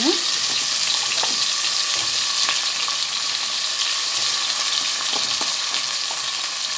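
Chopped zucchini and carrots frying in oil in a stainless steel pot: a steady sizzle, with a few faint clicks.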